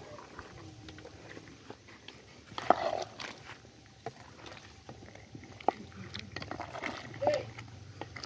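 A wooden cooking stick knocking and scraping in an aluminium pot as chunks of vegetables are stirred, in scattered sharp knocks. Short animal calls are heard too, the loudest about three seconds in and a brief one near the end.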